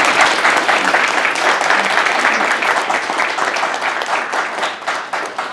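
Audience applauding: a room of people clapping steadily, thinning out near the end.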